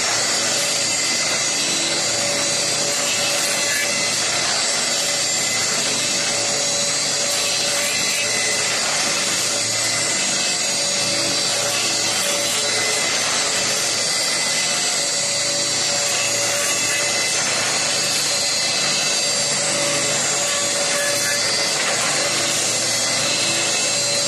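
Paint brush handle making machine running: electric motors and spinning cutters turning wooden handle blanks. It makes a steady dense hiss with several held tones over it, without a break.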